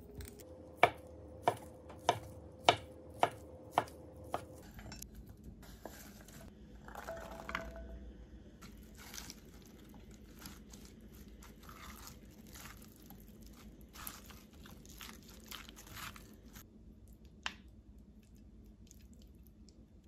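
Knife chopping through imitation crab sticks onto a wooden cutting board: seven even cuts about two a second in the first few seconds. Then softer scraping and rustling as the salad is stirred in a glass bowl with a spatula and wooden spoon.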